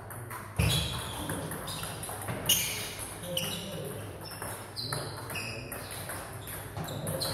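Table tennis balls clicking off bats and table tops, a string of short sharp hits at an uneven pace, the loudest about half a second in and about two and a half seconds in, with voices in the background.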